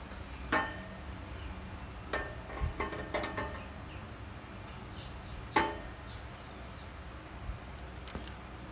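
A few sharp clicks and knocks as a rubber-jacketed power cord and its plug are handled against a welding inverter's plastic case and carry handle, with the loudest knock about halfway through.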